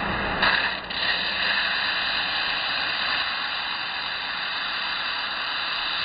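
Belt grinder running with steel pressed against the belt: a steady grinding hiss as sparks fly, briefly louder about half a second in.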